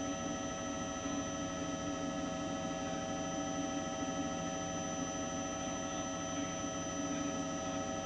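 Steady droning hum made of several unchanging tones, high and low, over a rough low rumble, holding level throughout.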